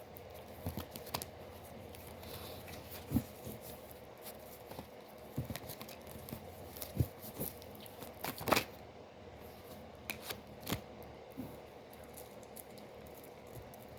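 Tarot cards being handled and shuffled: scattered soft snaps and taps, with a few louder ones.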